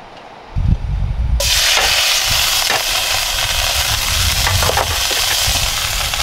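Venison smash-burger patties frying in a very hot, smoking pan: a loud, steady sizzle that starts suddenly about a second in, with a few faint clicks.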